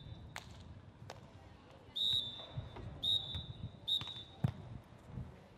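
Referee's whistle blown in three short, steady blasts about a second apart, at the close of a beach volleyball match. A few sharp knocks sound between the blasts.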